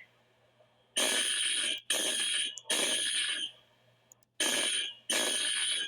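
Building fire alarm horn sounding in the temporal-three evacuation pattern: groups of three blasts, each under a second long, with a pause of about a second between groups.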